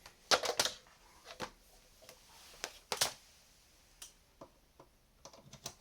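Scattered clicks and light knocks from a Tektronix oscilloscope and its power cable being handled, a cluster about half a second in, single ones through the middle and several more near the end.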